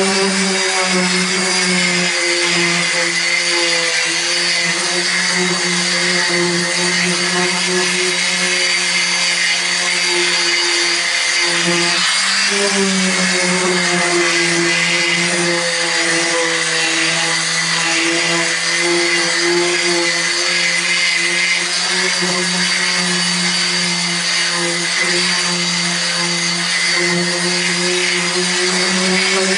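Handheld corded power tool sanding back the painted roof of a Toyota Coaster bus, its motor running steadily with an even hum. The motor briefly dips about twelve seconds in, then picks up again.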